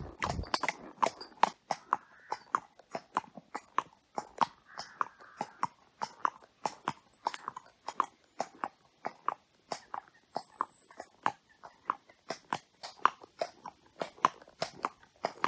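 A thoroughbred horse's hooves clip-clopping on wet tarmac at a walk, in a steady rhythm of about three hoofbeats a second.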